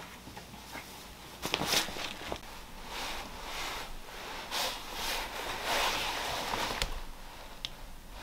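Fabric rustling and handling noise from a padded coat and a fleece tote bag being moved, coming as a series of swishes, with a few light clicks.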